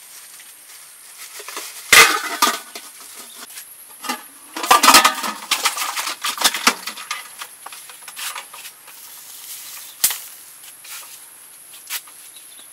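Metal cooking pot and its lid clattering as they are handled, in two loud bouts about two and five seconds in, with a single sharp knock near ten seconds.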